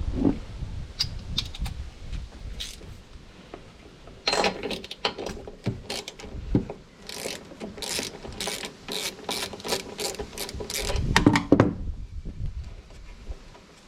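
Socket ratchet wrench clicking in a steady run, about two clicks a second, as the lawn mower's spark plug is turned out. A louder clatter follows near the end.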